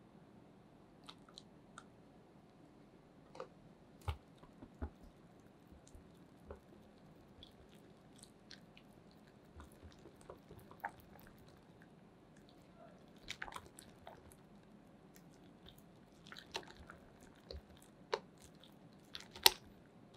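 Irregular soft clicks, taps and squishy handling sounds of food preparation, the loudest tap near the end.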